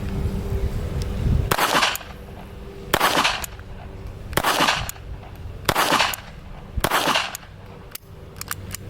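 Beretta Bobcat .22 LR pistol fired five times, the shots about a second and a half apart, each with a short ring-out. A low rumble comes before the first shot, and a few faint clicks come near the end.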